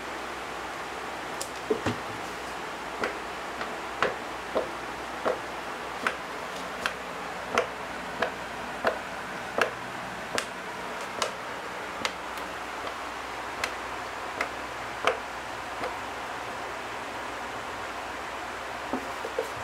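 A cat's tail thumping on a wooden floor in a steady run of sharp taps, about one every three-quarters of a second, slowing a little and stopping, then two more near the end, over a steady hiss.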